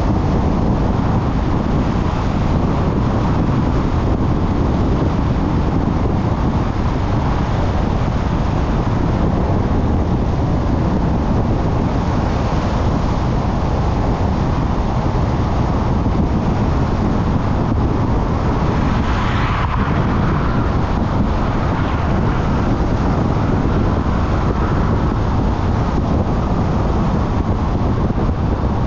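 Steady road and wind noise from a car driving along a street, with a brief swell of hiss about two-thirds of the way through.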